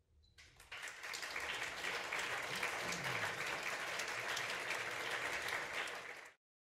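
Audience applauding, swelling in about half a second in and holding steady, then cut off abruptly near the end.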